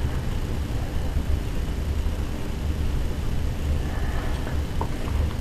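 A steady low rumble, with a few faint clicks and a light rustle from a camera filter's plastic packaging being handled near the end.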